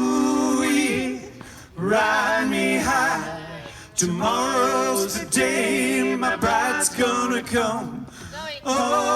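Unaccompanied male singing, several sung phrases with short breaks between them, some notes wavering with vibrato.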